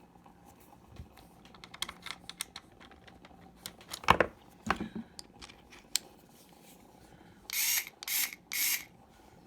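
Small plastic clicks and a knock as a cordless screwdriver is handled and set up, then three short whirring bursts of its motor about a second apart near the end.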